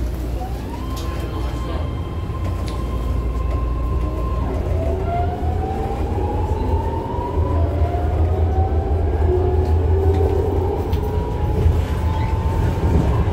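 BART Legacy Fleet car pulling away and accelerating: its traction motors whine, rising in pitch about half a second in and again in a slow climb from about four seconds in. A steady low rumble of the car on the rails sits underneath and grows louder.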